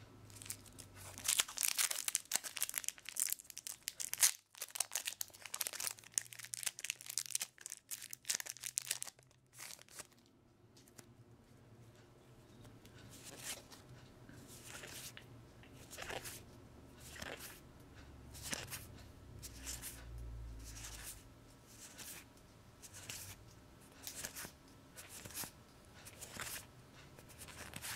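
A trading-card booster pack's foil wrapper being torn open and crinkled for several seconds. Then the cards are slid off the stack one at a time in short swishes, about one a second.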